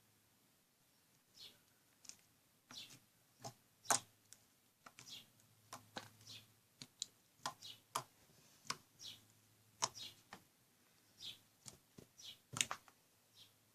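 Home-made slime being squeezed and poked by hand, making irregular wet little clicks and pops, often several a second.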